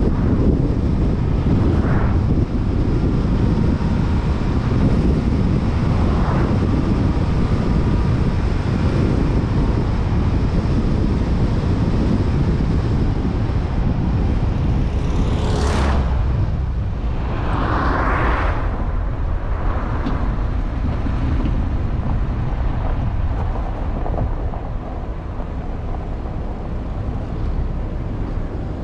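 Car driving at road speed: a steady low rumble of tyre and wind noise, with a brief whoosh about halfway through.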